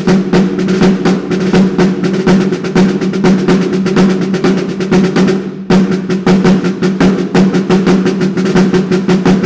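Snare drum played in rapid strokes, damped by a piece of old drumhead cut round and laid on top of the batter head, with a steady low ring under the hits. The playing breaks off briefly a little past halfway and resumes.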